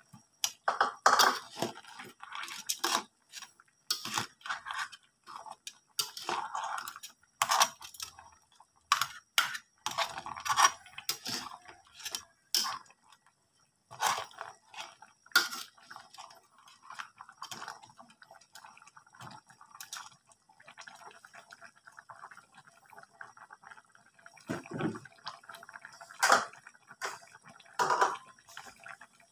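A metal spatula stirs crab in a thick sauce in a wok, giving irregular clinks and scrapes against the pan. The strokes thin out in the later part.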